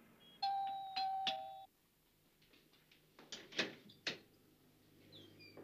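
Apartment doorbell chime ringing: a ringing tone struck about three times, with a lower note joining at the end, then cut off. About two seconds later come a few sharp clicks as the front door's lock is worked.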